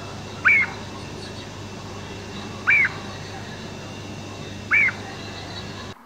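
Woodpecker calling: three short, sharp calls about two seconds apart, over a steady low hum and hiss.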